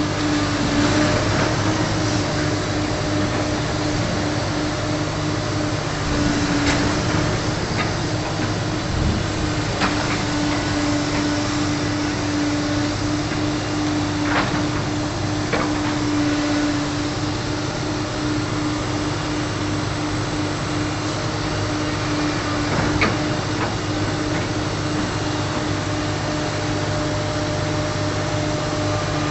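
Heavy machine's engine running steadily, a constant hum with a strong steady tone, with a few sharp knocks or clanks over it.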